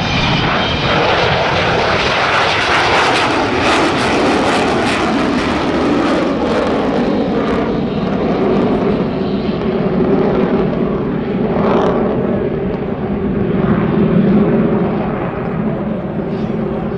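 Avro Vulcan bomber's four Rolls-Royce Olympus jet engines passing loud and continuous. The highest hiss dies away after about the halfway point, leaving a lower drone with steady tones.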